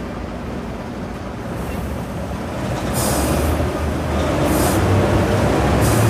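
Toy street sweeper running across a tabletop: its small motor whirring while the plastic wheels and brushes rumble and scrape on the surface, a steady rumble that grows gradually louder.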